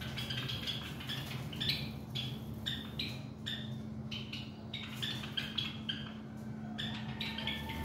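Nestling birds in a clay nest pot calling in a quick run of short, high chirps, about two to three a second, over a steady low hum.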